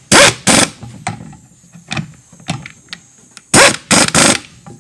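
Two pairs of short, sharp scraping clatters, one right at the start and one about three and a half seconds in, with light clicks between, as a Mohawk closing wheel with metal spokes is handled and turned by hand on its mounting bolt.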